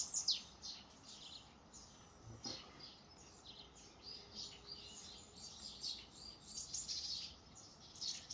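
Several small birds chirping, with quick high chirps overlapping and some sweeping downward in pitch, thickest in the first half second.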